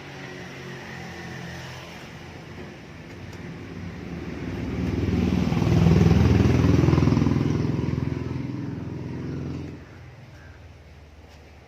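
A motor vehicle's engine passes close by, growing louder to a peak about six seconds in, then fading and dropping away sharply near the end.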